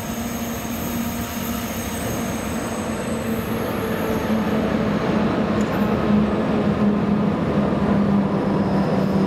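An electric locomotive hauling passenger coaches comes through an underground station tunnel, its rumble growing steadily louder, with a steady low hum that strengthens as it nears.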